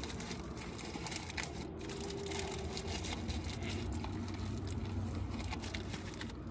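Chewing a burger close to the microphone, with its paper wrapper crinkling in the hands: many small crackles and mouth clicks over a low steady hum.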